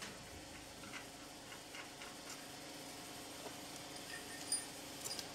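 Light metallic ticks and clicks from a threaded steel rod and nut being handled on a welded steel frame, scattered and irregular over a steady low hum, with one sharper click about four and a half seconds in.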